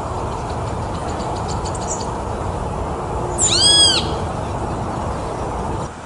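A mockingbird gives one loud, clear call about three and a half seconds in, rising then falling in pitch and lasting just over half a second, over a steady low rumble.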